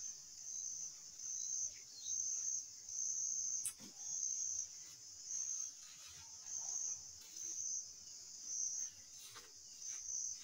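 A cricket-like insect chirping: a high, even-pitched trill in regular pulses a little under a second apart, with one sharp click about four seconds in.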